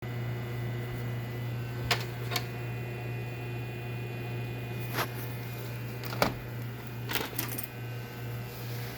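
Steady low electrical hum with several sharp clicks and taps scattered through it, a cluster of quick clicks near the end.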